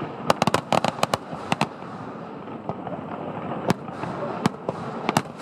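Fireworks display going off: a rapid cluster of sharp cracks and bangs in the first second and a half, then scattered single bangs for the rest.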